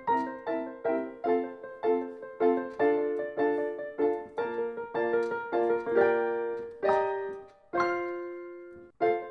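Background piano music with evenly spaced notes. About eight seconds in, a held chord fades out, then the notes start again.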